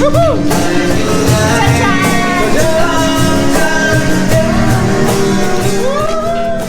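Rock-style music with a singing voice, guitar and a steady beat.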